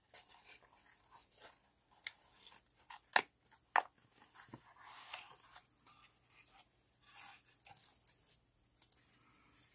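Handmade cardstock box and note cards being handled: scattered paper rustles and light taps as the box is opened and the cards are slid out, with a few sharper clicks around three to four seconds in.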